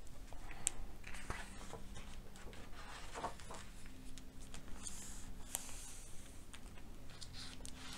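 Faint rustling and rubbing of paper as a hardcover picture book's page is turned and hands smooth the new pages flat.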